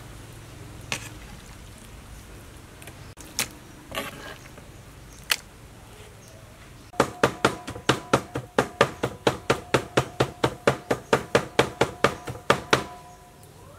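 Cleaver chopping on a wooden cutting board: a few separate knocks, then from about seven seconds in a rapid, even run of chops, about five a second, that stops shortly before the end.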